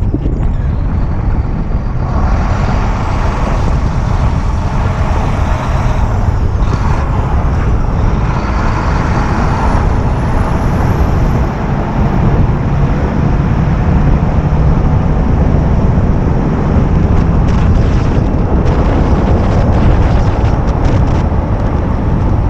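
Volvo VNL semi-truck at highway speed, about 100 km/h, heard from outside the cab: loud, steady rumble of wind, tyres and engine.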